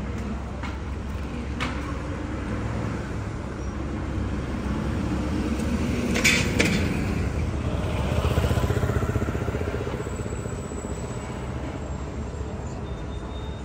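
City street ambience with a steady low rumble of traffic, a couple of sharp clacks about six seconds in, and a small motor vehicle such as a scooter growing louder and then fading around eight to nine seconds in.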